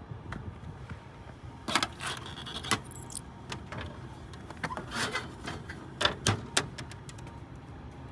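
Metallic clinks and sharp knocks, about a dozen separate taps over several seconds, some with a bright jingle, over a steady low background hum.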